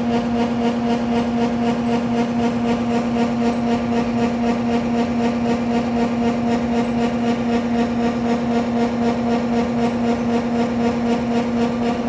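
Claas combine harvester at work cutting barley: a very noisy, steady machine drone with a strong constant hum and an even, fast pulsing of about four beats a second.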